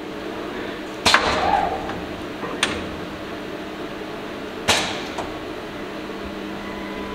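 Three sharp mechanical clunks over a steady hum from a double-sided automatic battery spot welding machine as its jig is jogged along the Y axis. The first clunk is followed by a short rattle.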